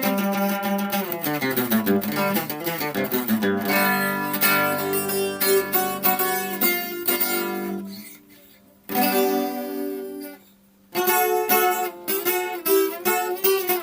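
Acoustic guitar played with picked notes and chords, including a descending bass run near the start. It breaks off briefly about eight seconds in and again about ten seconds in, then resumes.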